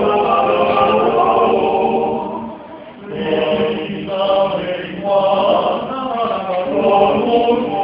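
Small male vocal ensemble singing in harmony, with a short break between phrases about two and a half seconds in before the voices come back in.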